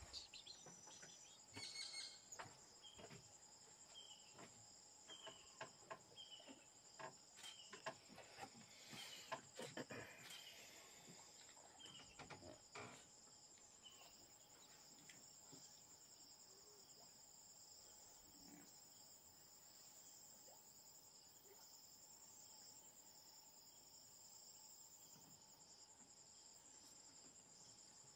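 Faint, steady high-pitched insect chorus. In the first half it is joined by a scatter of soft clicks and knocks, and a few seconds in by a short chirp repeated several times.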